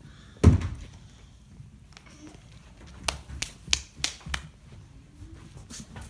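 A puppy bumping into the handheld phone: one loud thump about half a second in, then a run of light knocks and clicks about three to four and a half seconds in.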